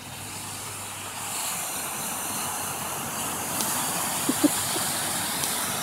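Small sea waves breaking and washing up a sandy beach, a steady hiss of surf. A short knock sounds about four and a half seconds in.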